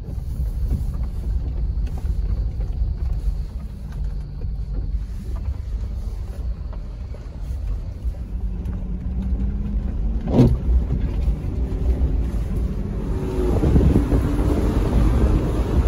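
Vehicle engine and road rumble heard from inside the cabin of a moving vehicle, the engine note rising slightly before a sharp knock about ten seconds in. The rumble grows louder and rougher near the end.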